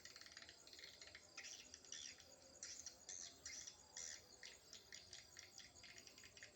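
Swiftlets twittering: a faint, dense stream of short, high chirps and clicks in irregular bursts.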